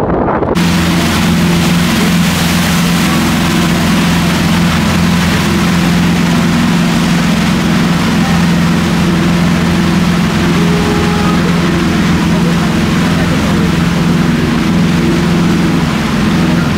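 A ship's engine drones steadily under the rushing hiss of the churning propeller wake and wind. The sound cuts in abruptly about half a second in.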